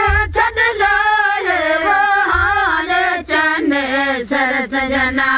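Women singing a Bheel folk song together with long, wavering, sliding notes between lines of the refrain.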